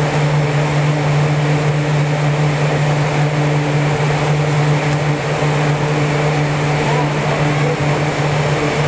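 Steady low hum of an air-supported sports dome's blower fans, which keep the dome inflated and ventilated: one even drone that does not change.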